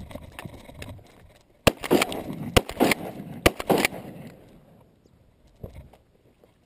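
Shotgun fired three times about a second apart at a flock of ducks flushing off the pond, with a rush of wingbeats and splashing around the shots.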